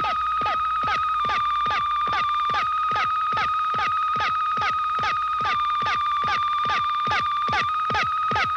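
Electronic Star Trek sound effect: a steady high tone with a rapid series of falling chirps, about three a second.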